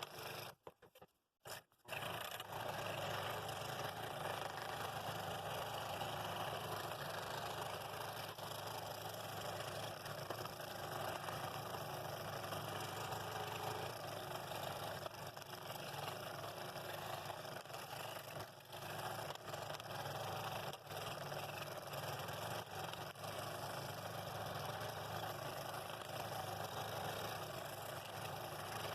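Scroll saw running steadily, its reciprocating blade cutting through wood. The sound breaks off for about a second near the start, then carries on.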